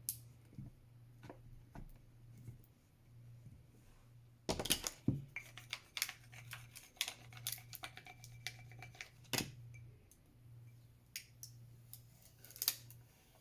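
Irregular small clicks and crackles of hands working plastic transfer tape and vinyl decal on a cup, pressing it down and peeling the tape away. The clicks are sparse at first and thicken from about four seconds in, over a faint low hum.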